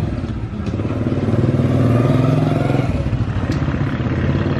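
Motorbike engine passing close by, getting louder to a peak about halfway through and then easing off, over street traffic noise.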